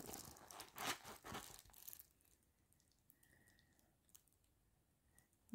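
Faint crinkling of the clear plastic film covering a diamond painting canvas as it is handled, with a few small clicks, for about the first two seconds, then near silence.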